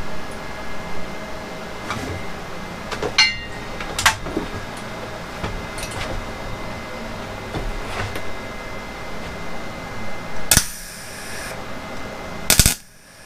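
Clicks and clatter of handling a MIG welding torch over a steady hum. Near the end come two short crackling bursts of MIG arc, the first lasting nearly a second, as tack welds are struck on the broken steel shaft of a Hobart mixer.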